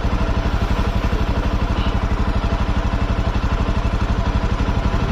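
Motorcycle engine idling steadily, with an even, rapid beat and no revving.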